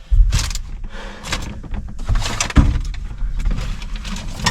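Handling noise of parts and wiring being worked by hand: irregular rustling, scraping and a few clunks, one sharper knock a little past halfway.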